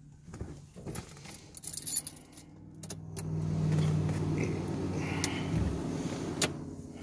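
Keys jangling at the ignition, then the Nissan 720 pickup's engine cranking on the starter for about three and a half seconds in a cold start that does not catch.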